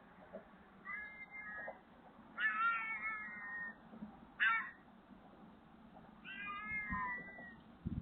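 Street cat meowing four times, drawn-out calls with one short meow between them, heard thin through a CCTV camera's microphone. Its feeder suspects the cat is hungry and calling for her to bring food.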